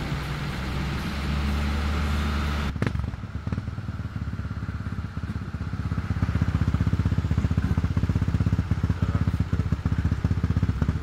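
Engines of off-road vehicles running along a dirt track, including a quad bike. The engine note is steady at first, with a sharp knock about three seconds in, then turns louder and rapidly pulsing from about six seconds in.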